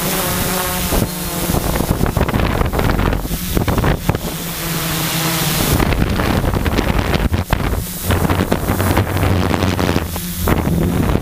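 Quadcopter's electric motors and propellers humming, heard from a camera mounted on the craft, their pitch shifting as it manoeuvres. Heavy wind buffeting on the microphone runs over it.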